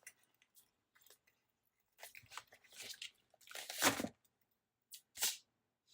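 Paper rustling as a sticker is peeled off its backing sheet, in a few short scratchy bursts, the loudest about four seconds in and one more about five seconds in.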